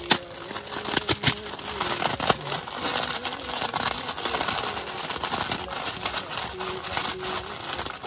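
Portable butane canister stove burning with a steady hiss under a steel pot of rice, mixed with the crinkling and clicking of a plastic bag being handled; a few sharper clicks come in the first two seconds.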